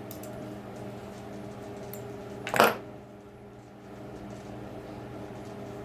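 A short metallic clatter about two and a half seconds in, small metal parts or a tool knocking on metal, over a steady low hum.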